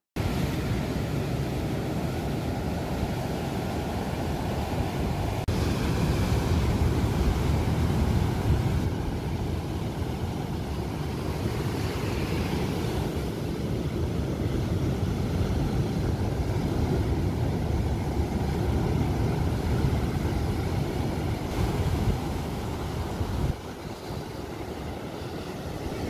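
Sea surf breaking and washing onto a sandy beach in a steady roar, with wind buffeting the microphone.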